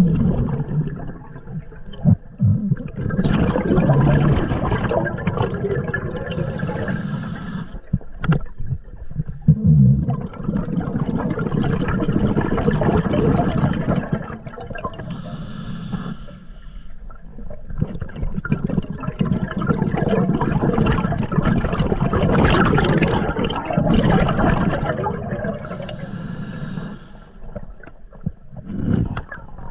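A diver breathing through an open-circuit scuba regulator underwater, heard close up: long stretches of exhaled bubbles rumbling and gurgling past the mask, broken by short hissing inhalations through the regulator.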